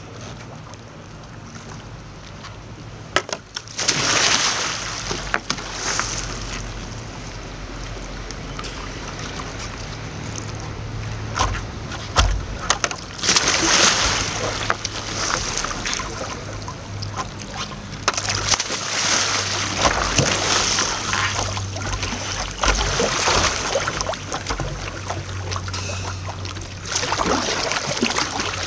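Water splashing and sloshing as a sea kayak is capsized and rolled back upright, with the paddle sweeping through the water. It comes in several bursts of splashing, loudest about halfway through.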